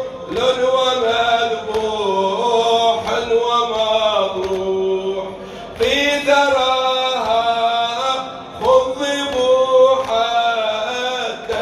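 A male radood singing an Arabic Shia nawha (mourning lament) unaccompanied into a microphone, in long held phrases that glide up and down, with short breaks for breath about halfway and near the end.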